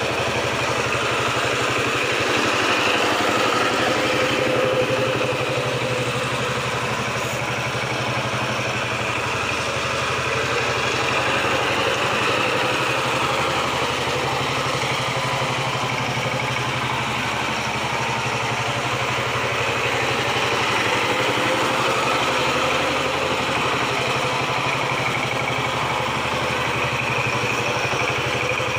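KAMCO power tiller's single-cylinder diesel engine running steadily with a fast, even chug, swelling and easing slightly as the machine is driven round over a layer of straw.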